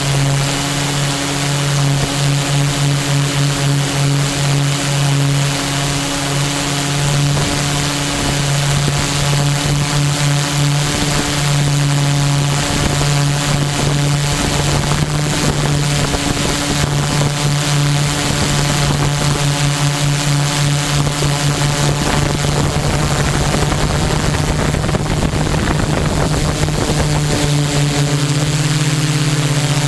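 HMF U580 quadcopter's Gartt 3508 brushless motors and propellers droning steadily under flight, heard from the onboard camera, with a noisy hiss of air over the microphone. The pitch shifts a little in the last several seconds as the throttle changes.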